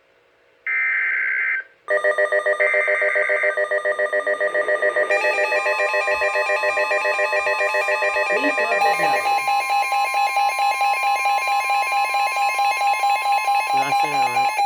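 Emergency alert tones for a severe thunderstorm warning: two short bursts of data-burst screech, then a fast-pulsing electronic alarm of several tones stacked together. More tones join it partway through, one of them held steady.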